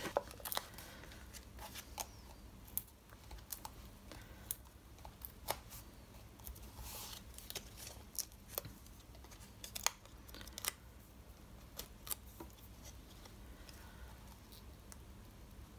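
Light handling of cardstock and 3D foam adhesive dots: scattered small clicks and taps, with a brief rustle about seven seconds in as the backing is peeled off and the paper label is pressed onto the card.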